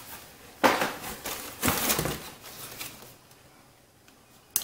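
Small boxed items and their packaging being handled and shifted in a cardboard box: rustling and scraping in two bursts in the first half, then a single sharp click near the end.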